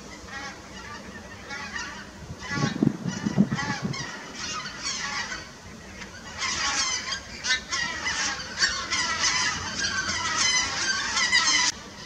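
A large flock of migrating geese calling in flight overhead, many overlapping honks, growing dense from about halfway through and cutting off suddenly near the end. A brief low rumble about three seconds in.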